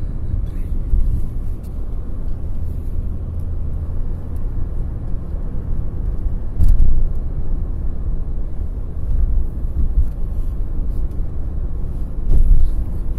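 Steady low rumble of road and engine noise from a car travelling at speed on a highway, heard from inside the cabin, with two brief louder surges, one about halfway through and one near the end.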